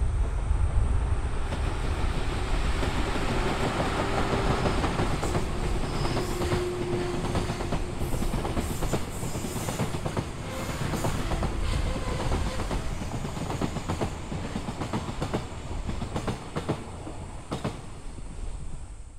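Container freight train's wagons rolling past, wheels clattering steadily over the rail joints, the sound easing off near the end as the last wagons go by.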